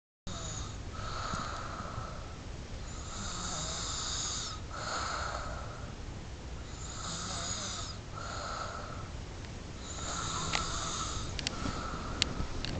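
A person snoring in their sleep: rasping breaths that swell and fade every two to three seconds, with a few short clicks near the end.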